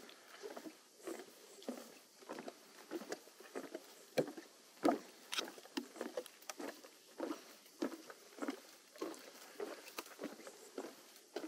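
A hiker's footsteps on a trail at a steady walking pace, a little under two steps a second, with one step about five seconds in louder than the rest.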